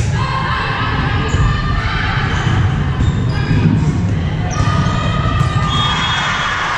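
Volleyball rally in a gym: the ball is served right at the start and struck several more times as players pass and set it, with sneakers squeaking on the hardwood court and players calling out, echoing in the large hall.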